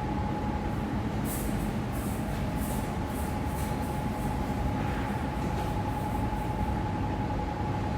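Winery machinery running: a steady hum with a constant high whine, and a string of short hisses from about one to seven seconds in.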